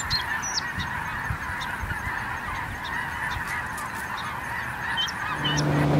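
A huge flock of snow geese calling, a constant din of many overlapping honks; music begins near the end.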